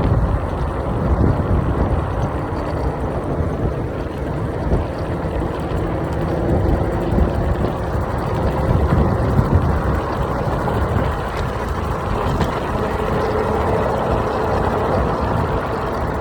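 Wind buffeting the microphone and road rumble while riding an electric scooter, a steady rough rushing noise. A faint steady hum joins in near the end.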